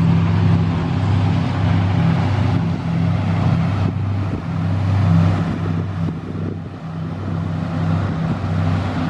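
A steady low engine drone, wavering in level, with wind gusting on the microphone.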